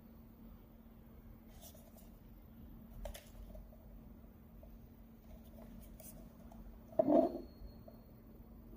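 Steady low hum with a few faint clicks, and one short, louder bump about seven seconds in: small handling noises in a small room.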